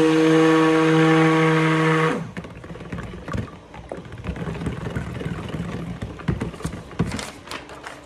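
Stick blender motor running at a steady pitch in cold-process soap batter of oils and goat milk kefir, switched off about two seconds in. Afterwards quieter knocks and swishing as the blender head is stirred through the batter by hand.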